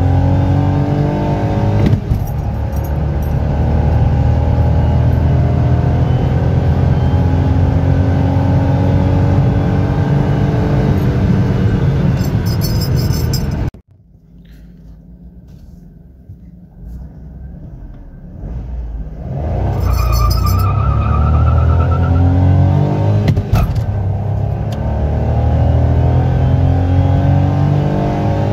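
2020 Suzuki Cultus's 1.0-litre three-cylinder engine, heard from inside the cabin, revving up hard under full-throttle acceleration, its pitch climbing with a break at each gear change. About halfway through the engine sound cuts off abruptly to a much quieter few seconds, then builds again as a second full-throttle run pulls up through the revs.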